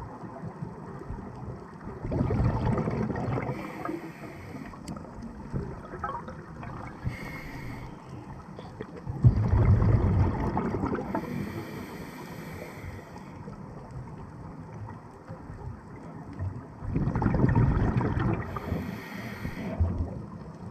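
Scuba regulator exhalation bubbles rushing past the camera housing in three loud bursts about seven seconds apart, the diver's regular breathing cycle, with a short high hiss of inhalation between them over a steady low underwater rumble.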